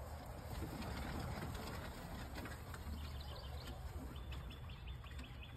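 Quiet outdoor background with a steady low rumble. About four seconds in comes a quick, evenly spaced run of faint high chirps.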